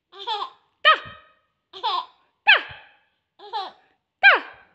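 Baby laughing in three short bursts. Each burst is a soft catch followed by a louder high squeal that slides down in pitch.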